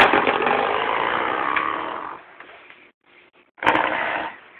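A small child making a loud, harsh buzzing noise that starts abruptly and lasts about two seconds, then a shorter burst of the same noise near the end.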